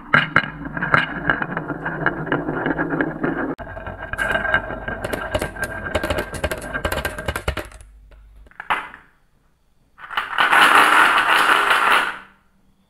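Marbles rolling down wavy wooden marble-run tracks, clattering against the wood and each other with many rapid clicks, and dropping into a plastic toy truck's cage. After a short pause comes a louder rattle of about two seconds.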